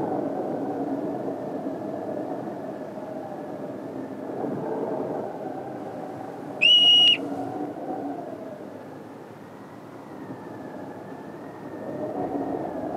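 Hoary marmot giving its alarm whistle: one loud, high whistle about half a second long, a little past halfway through, dipping in pitch at the very end. Under it runs a steady rushing of wind.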